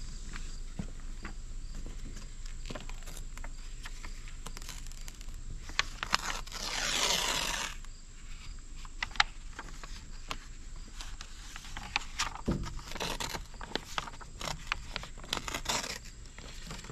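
Paper backing liner being peeled off a large vinyl decal, the paper crinkling and crackling as it is handled, with a longer peeling rush of about a second roughly seven seconds in.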